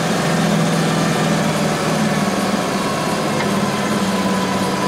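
Mercedes-Benz 208 D van's diesel engine running steadily, heard from inside the cab.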